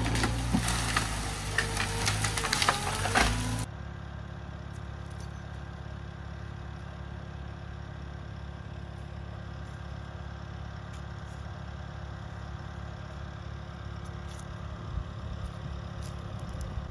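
An engine running loud, its pitch wavering, with sharp cracks over it. About four seconds in it drops abruptly to a quieter, steady engine idle.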